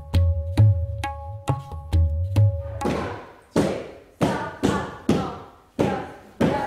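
Music of regular hand-drum strokes, about two a second, over a steady held drone. About three seconds in it gives way to louder, irregular sharp percussive hits that each ring on and fade.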